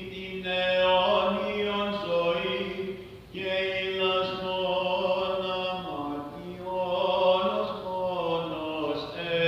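Unaccompanied Orthodox church chanting at Vespers: voices sing a slow, melismatic hymn line over a steady low held note, an ison drone. The singing dips briefly about three seconds in.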